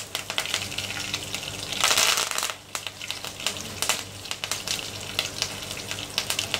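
Fresh curry leaves sizzling and spattering in hot oil with cumin and mustard seeds, a steady hiss full of sharp crackles. The sizzle swells louder about two seconds in, then drops back to a quieter crackle.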